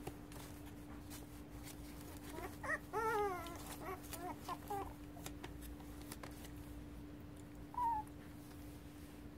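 Young puppies, 3.5 weeks old, whining as they play: a run of short high whimpers from about two and a half to five seconds in, then one more short whine near the end. A steady low hum sits underneath.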